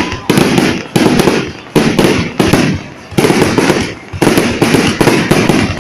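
Fireworks display: shells bursting one after another, a sudden loud bang every half-second to second, each fading out before the next.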